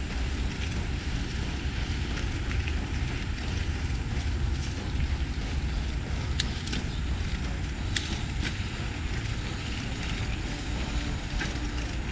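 Steady rumble of wind buffeting the microphone, with scattered light clicks and rattles.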